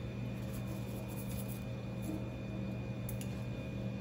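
Steady low hum with faint background room noise; no distinct events.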